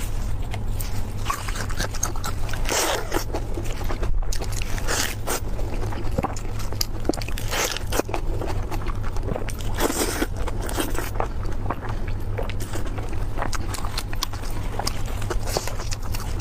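Someone eating: repeated, irregular biting and chewing with crunches, over a steady low hum.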